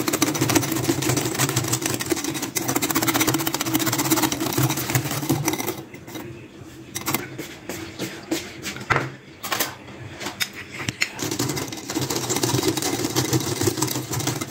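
Wire hand whisk beaten fast through thick, creamy whipped coffee in a glass bowl: a fast, continuous rattle of the wires against the glass. About six seconds in it slows to scattered taps, then picks up again about five seconds later.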